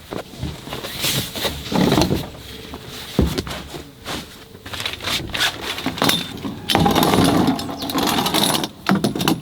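Camping gear being handled: irregular knocks and clatter with stretches of rustling and scraping, busiest near the end.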